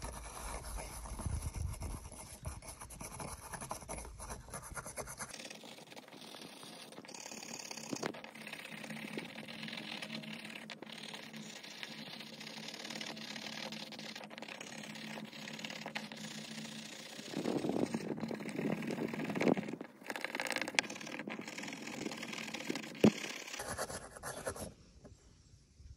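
Knife blade scraping crusted rust off an old iron skeleton key on a wooden board: a gritty scratching that goes on in stretches and grows louder about two-thirds of the way through.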